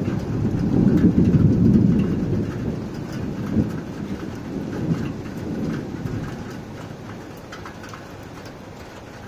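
Thunder rolling in a long low rumble that swells in the first second, peaks over the next second or two, then dies away over several seconds, over a steady hiss of rain.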